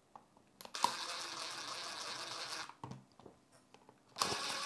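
Small electric screwdriver whirring in two runs, one of about two seconds and a shorter one near the end, driving screws into the clock case.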